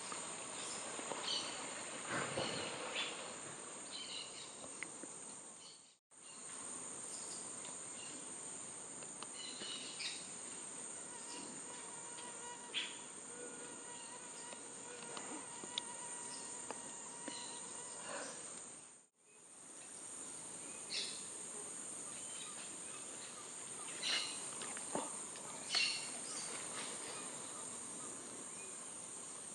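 Amazon rainforest ambience: insects keep up a steady, high-pitched drone, with scattered short bird calls over it. The sound breaks off briefly twice.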